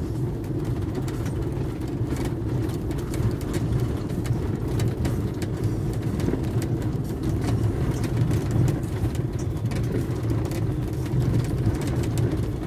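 Vehicle engine running at low speed as it drives over a gravel dirt track, heard from inside the cab: a steady low hum with frequent small clicks and rattles.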